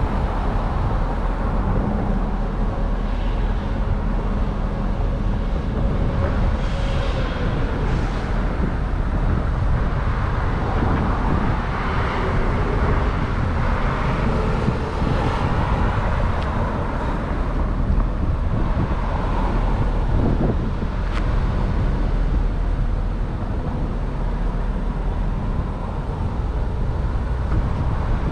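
City street traffic heard from a moving bicycle: a steady road-noise hiss and rumble, with a few cars swelling past.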